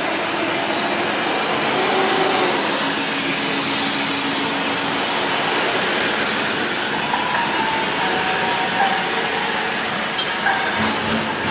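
Steady noise of street traffic, with the engines of passing vehicles and tyres on the road.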